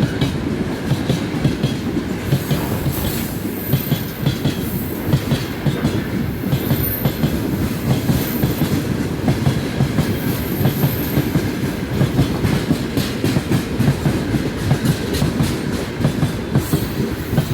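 Railway carriage wheels clattering over the rail joints: a steady rumble with quick, irregular knocks, and a few brief, faint high-pitched squeals from the wheels.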